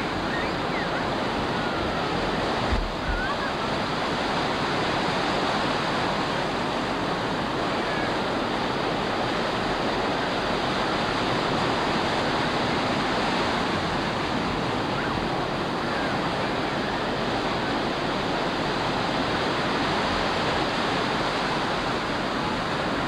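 Ocean surf breaking and washing in, a steady rushing noise.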